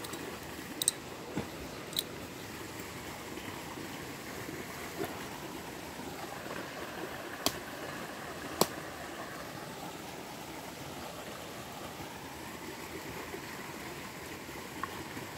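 Steady hiss of running water, with four short, sharp clicks: two in the first couple of seconds and two more about halfway through.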